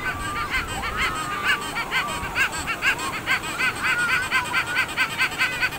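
A child laughing in a long run of quick, high-pitched giggles, about four or five a second, with surf and wind noise underneath.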